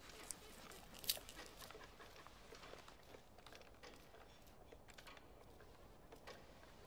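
Near silence: faint room tone with a few scattered soft clicks, one sharper click about a second in.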